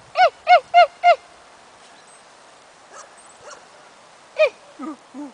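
English bull terrier puppies yapping in play: a quick run of four high yips at the start and another a few seconds later, then a few lower-pitched calls near the end.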